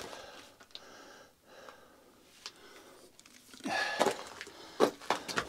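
A person breathing close to the microphone, with a louder breath about three and a half seconds in and a couple of sharp scuffs on rocky ground soon after.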